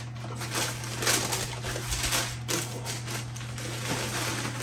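Paper rustling and crinkling in irregular bursts as the wrapping paper is pulled out of a sneaker box, over a steady low hum.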